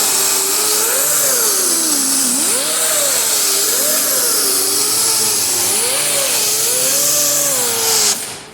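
Power sander spinning a new 36-grit Norton disc, its motor pitch rising and falling as it is worked against the panel, over a loud abrasive hiss; it shuts off near the end.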